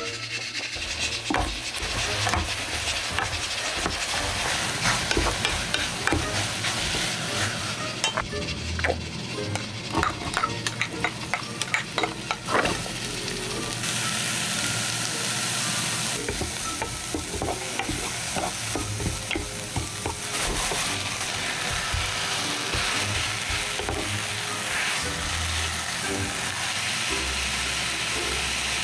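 Food frying and sizzling in a pan while being stirred, with a run of sharp knocks and scrapes of a utensil against the pan partway through.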